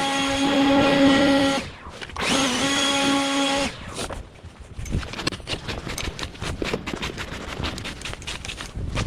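A handheld blower's motor runs at a steady high pitch, cuts out briefly about a second and a half in, spins back up and stops about four seconds in. It is followed by a fast, irregular run of crunching, scraping sounds.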